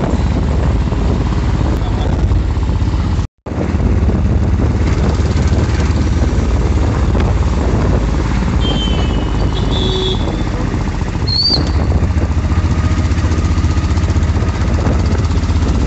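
Steady low engine and road noise of a small vehicle, heard from on board while riding along a street. The sound cuts out for a moment about three seconds in, and a few short high chirps come near the middle.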